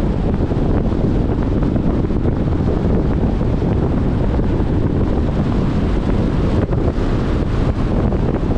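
Steady rush of wind buffeting the microphone, with low road rumble from a car driving at speed on a highway.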